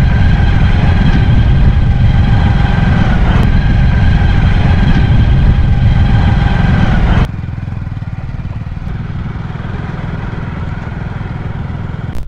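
A motorcycle engine running steadily, with heavy wind rumble on the microphone. About seven seconds in, the sound cuts abruptly to a quieter, rougher rumble.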